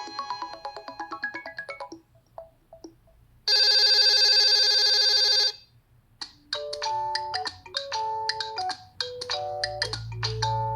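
Stock ringtones of a Nokia 3 (TA-1032) smartphone playing one after another. One melodic tune fades out, a harsh buzzing tone sounds for about two seconds, and after a short pause a new tune of short, quickly repeated notes starts.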